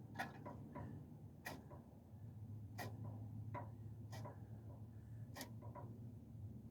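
Light, irregular clicks and taps, about a dozen, from handling a gas can and small parts, over a faint low hum.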